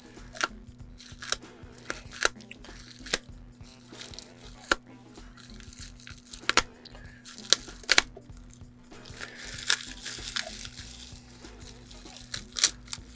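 Bubble wrap being handled and pulled apart to free a wrapped glass piece: crinkling with sharp, irregular snaps, and a longer stretch of crinkling about nine seconds in.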